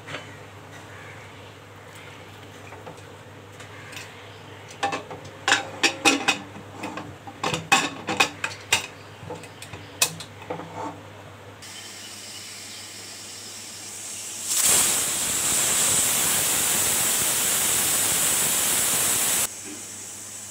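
Aluminium pressure cooker's lid being fitted and clamped, a run of metal clinks and knocks. About fifteen seconds in, the cooker whistles: a loud steam hiss from the weight valve lasting about five seconds and cutting off suddenly, the sign that it has come up to pressure.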